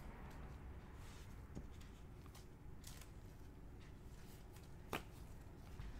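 Faint rustling and scattered clicks of cardboard trading cards being slid and flipped through by gloved hands, with one sharper click about five seconds in.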